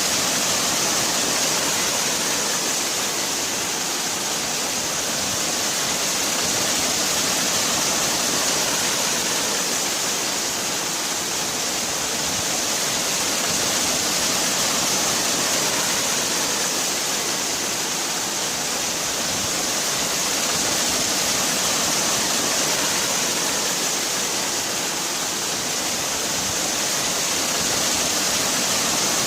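Waterfall: a steady rush of falling water, its hiss strongest in the high range and gently swelling and easing every few seconds.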